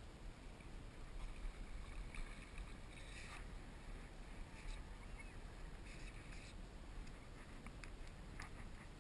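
Small splashes and water sloshing against a plastic kayak hull, coming in short irregular bursts over a steady low wind rumble on the microphone.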